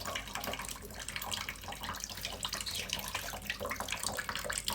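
Running water with many quick, irregular small splashes as a green-cheeked conure bathes in it.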